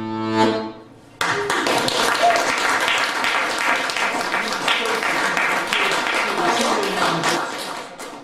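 Piano accordion's held final chord stopping, then, about a second later, an audience breaking into applause that fades near the end.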